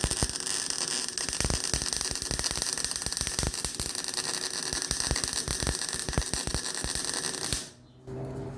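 Arc welder crackling steadily while welding exhaust pipe and muffler joints, stopping abruptly near the end.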